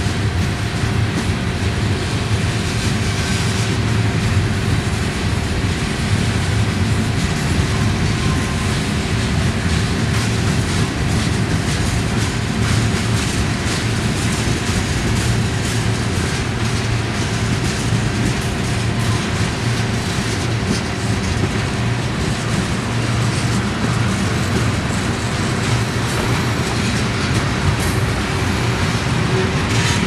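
Railroad tank cars of a long freight train rolling past: a steady, loud run of steel wheels on the rails, with wheels clicking over the rail joints.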